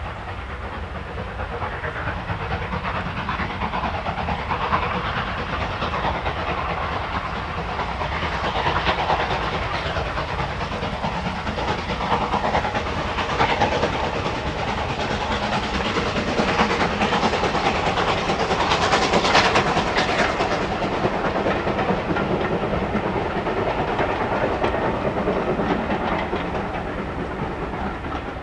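A steam locomotive working hard as it hauls a passenger train past, with exhaust steam and the rattle of the coaches on the rails. It builds gradually to its loudest about two-thirds of the way through, then eases off a little as the train draws away.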